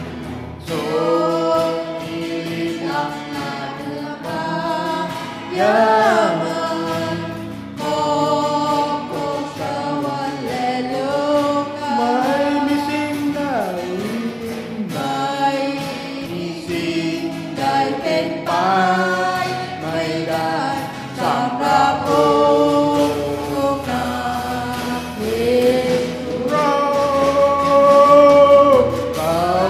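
A group of voices singing a Christian worship song together, phrase after phrase, over sustained accompanying chords.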